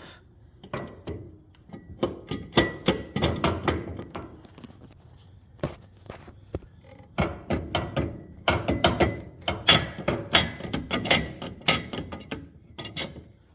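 Irregular knocks and clunks of metal suspension parts and tools being handled as worn A-arm bushings are removed from a side-by-side.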